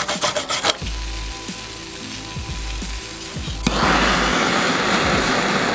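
A hand brush scrubbing the steel rocker cover in quick strokes for the first second, then a steady hiss that jumps sharply louder a little before four seconds in as a gas brazing torch plays on the cover's oil vent to braze its edges.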